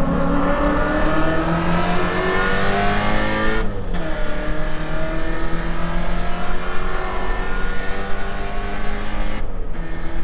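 Holden VK Commodore's 308 V8 under full throttle, climbing steeply in revs, then an upshift about four seconds in, after which it pulls again more slowly in the next gear. There is a second short break in the engine note near the end.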